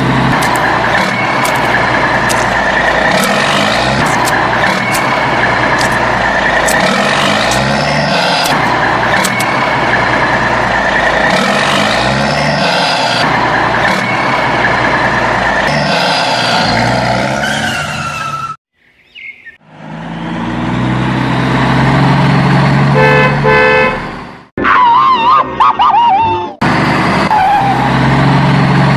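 Vehicle sound effects: engines running with car horns honking, broken by a short silence about two-thirds of the way through, then repeated short horn beeps and a wavering siren-like tone.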